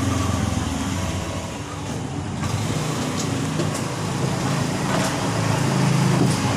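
A motor vehicle engine running with a low steady hum, growing louder near the end.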